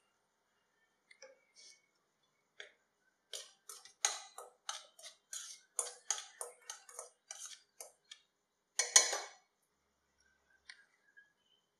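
A spoon stirring dry rice flour and gram flour in a stainless steel bowl: a quick run of short scraping strokes, two or three a second, with one louder scrape about nine seconds in.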